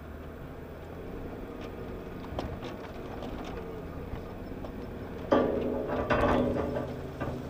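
Off-road vehicle driving slowly over a rough woodland track, its engine a steady low hum with scattered knocks and clunks. About five seconds in, a much louder noise starts suddenly and lasts about two seconds.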